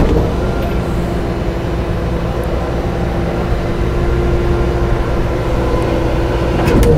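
Rollback tow truck's engine running steadily with the PTO engaged to drive the hydraulic pump, a low hum with a held tone; the sound shifts and gets louder near the end.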